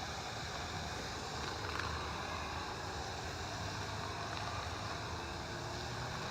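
Hose-end coil cleaner sprayer spraying water and cleaner onto a condenser coil: a steady hiss of spray.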